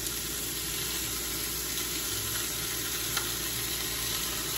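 Frozen sliced steak frying in hot grease in a pan: a steady sizzle with an occasional small pop.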